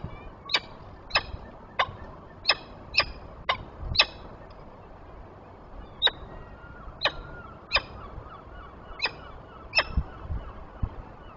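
Peregrine falcon giving a series of short, sharp calls, about two a second at first, then more spaced out with pauses between them.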